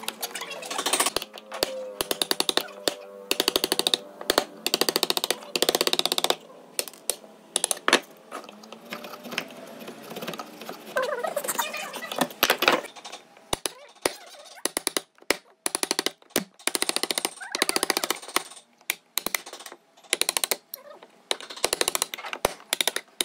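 Wood chisel cutting a joint into a clamped wooden block: rapid runs of sharp taps in short bursts, with brief pauses between them.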